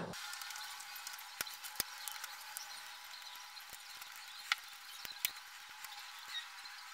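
Faint scratching with a handful of sharp little clicks: metal tweezers picking and scraping at glue along the edge of a JBL Clip+ speaker's plastic driver housing.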